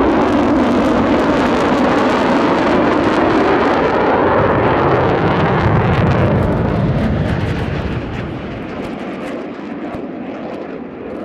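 Jet noise from a low-passing F-35A Lightning II fighter, loud and steady for about seven seconds, then dropping off and fading as the jet moves away.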